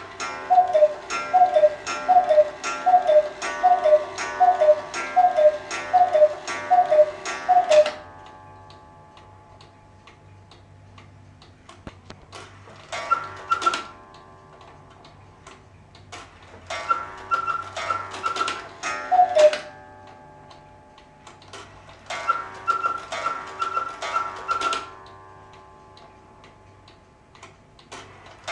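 Quail cuckoo clock: the cuckoo's falling two-note bellows call repeats about a dozen times, with higher quail chirps, as it strikes the hour. After that the pendulum ticks quietly while the hands are turned by hand, setting off three short runs of quail chirps, one with a single cuckoo call.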